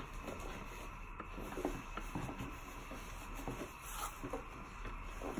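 Flat paintbrush stroking wet white paint across a canvas: soft, irregular brushing and scrubbing strokes.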